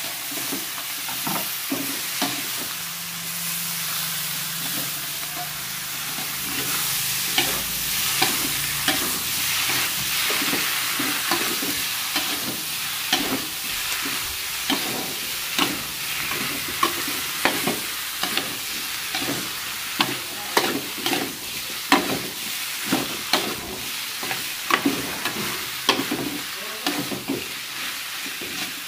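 Bamboo shoot slices stir-frying in an aluminium wok: a steady sizzle under a metal spatula scraping and clacking against the pan. The spatula strikes become frequent and louder from about seven seconds in.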